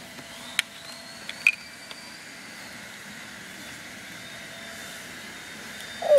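A steady low hiss with two light plastic clicks, about half a second and a second and a half in, as a children's plastic toy is handled. A faint, thin high tone holds underneath.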